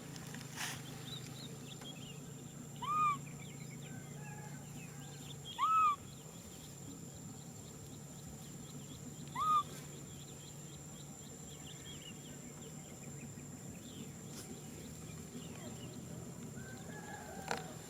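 Baby macaque giving three short coo calls a few seconds apart, each rising then falling in pitch: an infant crying out for contact with its carer.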